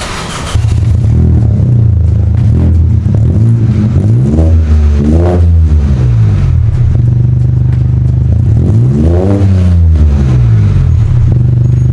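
BMW 118i F40's 1.5-litre three-cylinder turbo engine idling through a muffler-deleted cat-back exhaust, blipped twice, each rev rising and falling back to idle.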